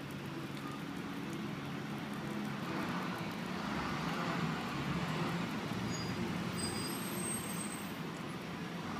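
Street traffic: a motor vehicle's engine running close by with a steady low hum over road noise, growing louder in the middle and easing off toward the end.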